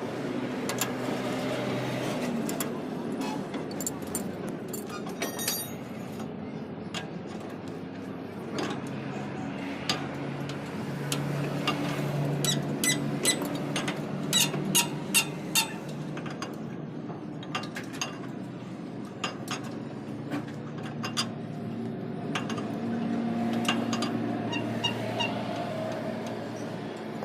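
Scattered metallic clinks and taps of tools on metal parts, bunched together about halfway through, over a steady low hum.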